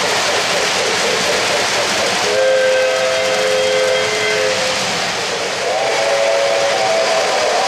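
O-gauge model locomotive's electronic sound system blowing two long steam-whistle blasts, each a chord of several notes. The second starts with a brief upward slide and is still sounding at the end. Underneath, the running trains make a steady rushing noise.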